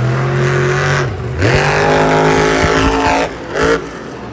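Monster truck's supercharged V8 engine revving hard twice, each time climbing and holding at a high, steady pitch before dropping off.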